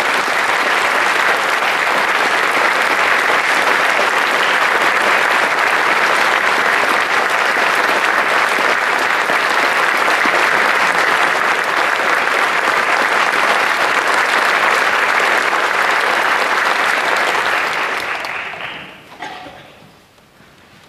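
Audience applauding steadily for a guest conductor's entrance, dying away near the end.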